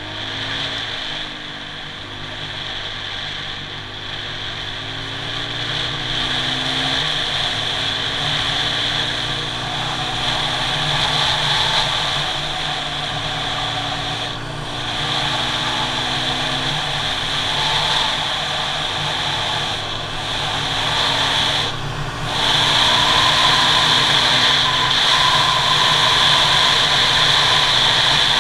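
Kawasaki KLX140G's small single-cylinder four-stroke engine under way, heard from the rider's helmet camera. Its pitch climbs and then drops back several times as it is shifted up through the gears, then it runs steadier and louder over the last few seconds.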